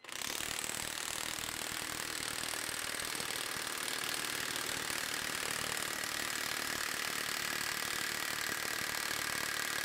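A stock Milwaukee 2767 M18 FUEL half-inch high-torque cordless impact wrench hammering continuously at full speed in reverse against a bolt on a torque test fixture, with a steady high whine over the rapid impacts. It starts abruptly and keeps an even level throughout.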